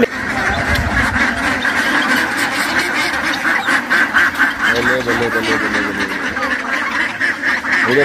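A flock of domestic ducks quacking together in a dense, continuous chatter.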